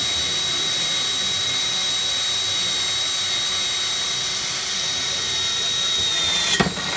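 Cordless drill running steadily in plain rotary mode, with no hammer action, as a Dart multipurpose bit grinds down through a 20 mm cast iron manhole cover, with a steady high whine throughout. The whine bends down and the drill stops near the end.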